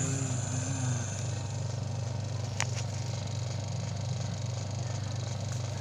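Spin-dryer motor of an LG WP-600N twin-tub washing machine running on a test after rewiring, a steady low hum as it spins the dryer tub. A single sharp click comes about two and a half seconds in.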